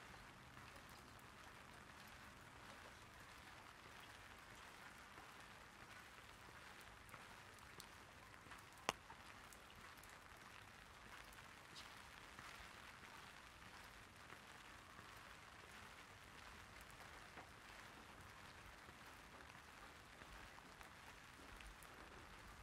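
Light rain pattering softly and steadily on an umbrella, with scattered small drop ticks and one sharp tap about nine seconds in.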